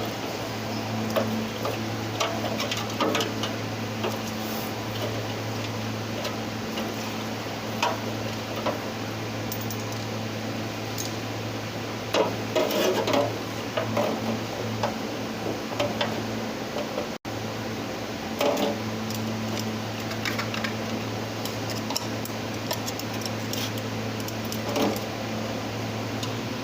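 Intermittent metallic clicks and clinks of hand tools on the EGR assembly's bolts and fittings as it is unbolted, busiest about halfway through, over a steady low electric hum like a fan motor.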